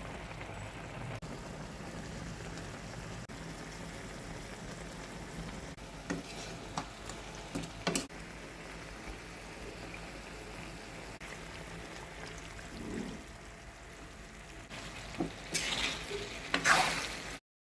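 Chicken deep-frying in hot oil, a steady sizzle, with a few sharp clinks of a utensil against the pan near the middle. A louder cluster of knocks and clatter comes near the end, then the sound cuts off suddenly.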